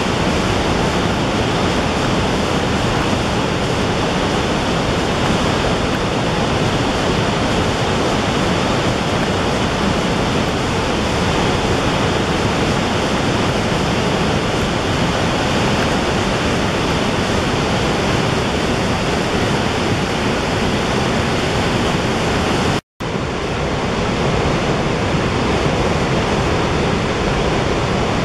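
A large, high waterfall in heavy flow: a steady, even rush of falling water, broken once by a split-second dropout near the end.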